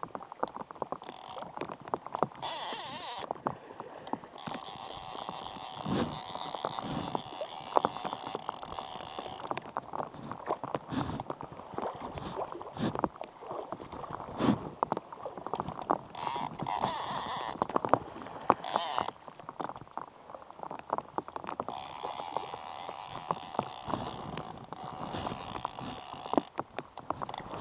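Fly reel's click-and-pawl drag ratcheting as a hooked Atlantic salmon pulls line off and the angler reels in. It comes in stretches of fast clicking with short breaks between them.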